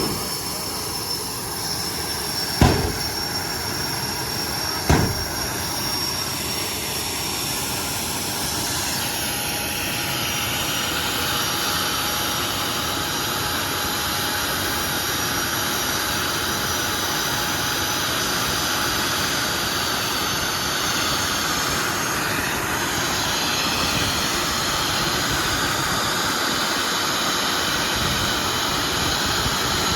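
Jet dragster's turbojet engine running: a loud steady rushing with a thin high whine over it. Two sharp bangs come about three and five seconds in.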